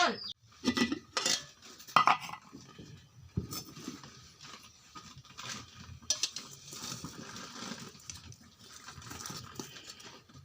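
Cutlery and dishes clinking and knocking, with a few louder knocks in the first three and a half seconds, then lighter scattered clinks.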